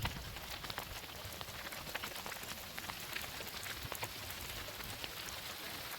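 Hail mixed with rain coming down, a dense patter of many small sharp ticks over a steady hiss.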